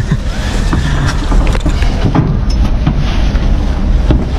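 A stationary pickup-truck shared taxi's engine rumbling at idle, with scattered knocks and thuds as passengers climb into its open back and shift on the bench seats.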